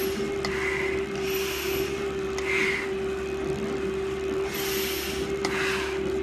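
Hard breathing through a firefighter's full-face respirator mask, a hissing breath every second or two, over the steady hum of a stair-climbing machine.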